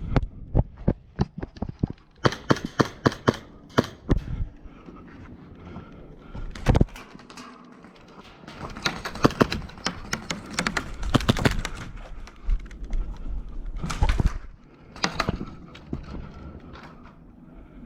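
Airsoft guns firing: sharp clicks in quick strings of about six a second, with scattered single shots between.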